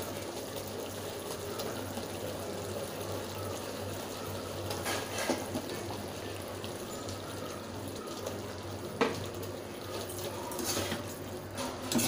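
Chilli sauce simmering in a kadai with a steady bubbling hiss, while fried cauliflower florets are dropped in by hand, giving a few brief soft knocks.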